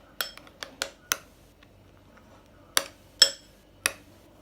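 A utensil clinking against a mixing bowl while slime ingredients are stirred: about seven sharp clinks at uneven intervals, in two clusters, the loudest a little after three seconds in.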